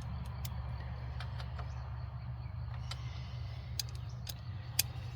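Scattered light clicks of tools and brake parts being handled, about six at irregular intervals, over a steady low hum.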